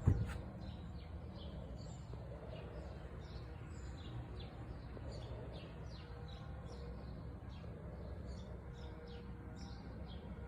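Birds chirping in short, repeated high calls over a steady low hum.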